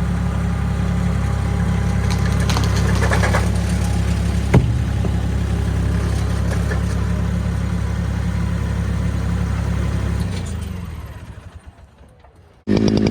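An engine running steadily at an even, low speed, with a single sharp knock about four and a half seconds in. It fades away over the last couple of seconds, and a loud sound cuts in abruptly at the very end.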